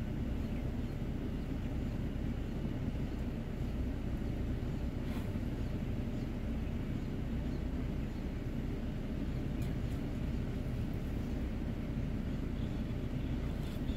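A vehicle engine idling with a steady low rumble, heard from inside the car, with a couple of faint clicks.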